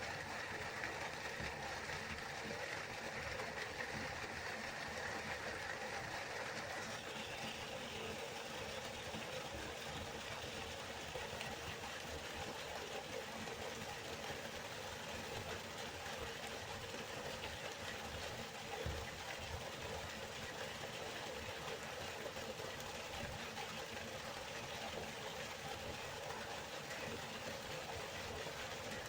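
River water flowing in a steady rush, its tone shifting slightly about seven seconds in.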